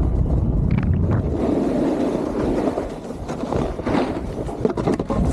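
Wind buffeting the microphone while a snowboard slides and scrapes over packed snow, with a few sharp knocks about four to five seconds in.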